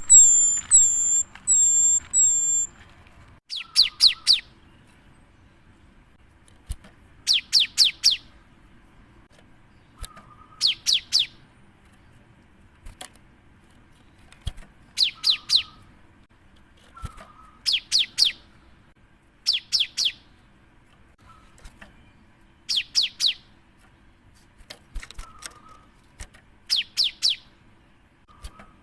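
Gelatik batu (cinereous tit) singing: a quick run of about five high whistled notes at the start, then short bursts of three or four rapid, sharply falling high notes repeated about every three seconds.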